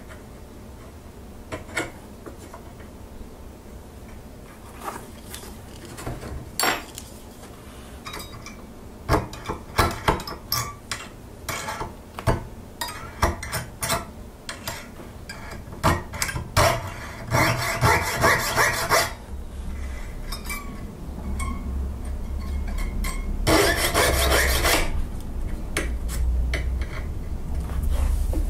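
Hand-working a small steel part with needle files and a jeweller's saw: scattered scraping strokes of metal on metal, then two runs of fast, even strokes. A low hum comes in about two-thirds of the way through.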